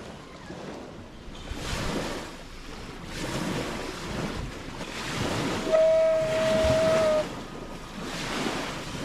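Small lake waves washing on the shore with gusts of wind on the microphone, the noise swelling and fading every second or two. A steady high tone sounds for about a second and a half in the middle.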